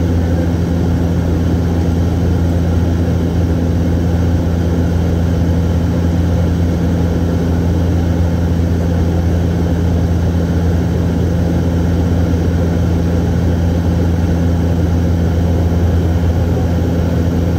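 Steady, loud drone of a De Havilland Dash 8 Q400 turboprop in flight, heard inside the cabin beside the engine: a deep, even propeller hum with a second, higher hum over a rushing noise, unchanging throughout.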